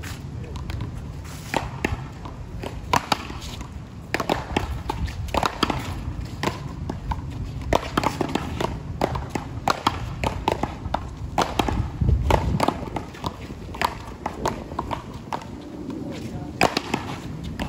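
Indistinct voices, with irregular sharp knocks and taps scattered throughout, over a low steady rumble.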